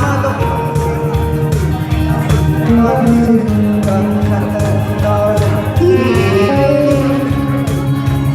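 Instrumental backing music for a Korean ballad: a guitar carries the melody over a steady bass and beat.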